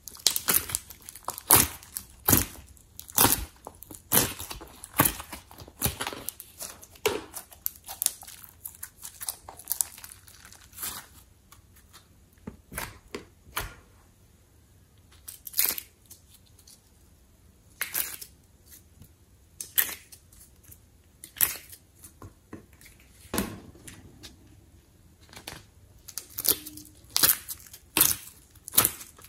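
Irregular crackling and crinkling clicks of a thin plastic tray flexing as fingers press small clay pieces out of its cells. The clicks thin out for a while in the middle, then come thick again near the end.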